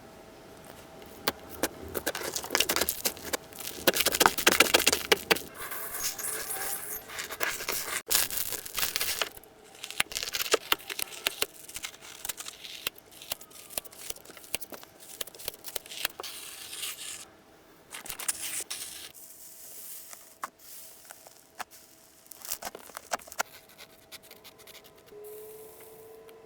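Slime being squeezed and stretched by hand: dense crackling, clicking and tearing sounds in bursts, busiest in the first few seconds and then thinning out to scattered clicks.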